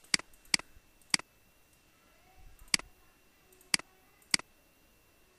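Computer mouse buttons clicking, six sharp single clicks at uneven intervals.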